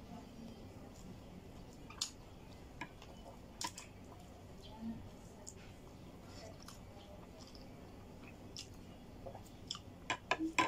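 A person eating: quiet chewing with a few sharp clicks spread through, and a quick run of clicks near the end.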